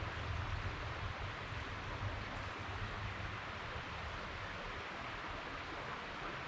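River water flowing steadily, a constant rushing hiss with a low rumble underneath.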